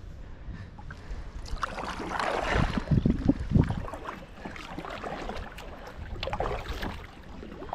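Kayak paddle strokes: the blades dipping and splashing through the water, in uneven rounds, loudest about two to four seconds in.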